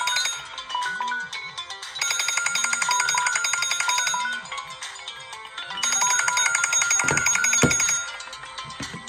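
A smartphone alarm/timer tone ringing: a bright, chiming melodic phrase that repeats about every four seconds, each pass loud and then softer. There are a couple of short low knocks about seven seconds in.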